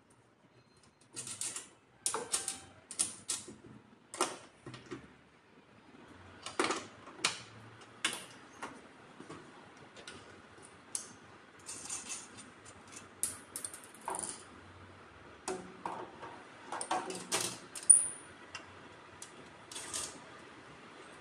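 Irregular metal clicks and taps of a spanner working on the bolted terminals of a lithium battery bank as the battery cables are fastened on, some clicks coming in quick clusters. A faint steady background noise sets in about six seconds in.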